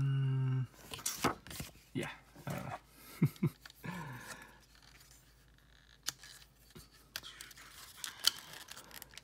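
Plastic transforming robot figure being picked up and handled, its parts clicking and knocking with short rustles. It opens with the loudest sound, a steady hum-like tone about a second long that cuts off suddenly.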